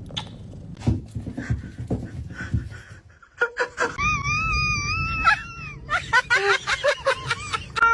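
A domestic cat's long, wavering yowl, lasting over a second about four seconds in, followed near the end by a quick run of short broken vocal sounds.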